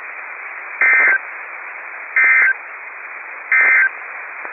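Three short bursts of SAME end-of-message data tones from a NOAA Weather Radio broadcast, about 1.4 seconds apart, over steady radio hiss: the digital code that marks the end of the weekly test message.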